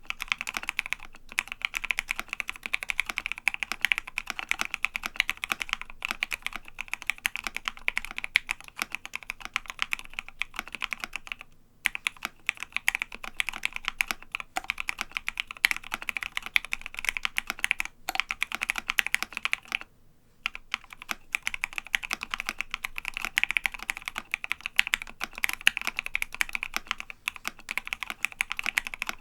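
Fast, continuous typing on a custom mechanical keyboard: a Savage65 with lubed Gateron Ink Black linear switches, FR4 plate and MT3 Godspeed keycaps. Rapid keystrokes run on with two brief pauses, about twelve and twenty seconds in.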